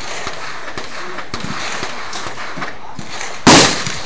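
Steady blizzard wind on the microphone, then a single loud shot from a .308 AR-10-pattern rifle about three and a half seconds in.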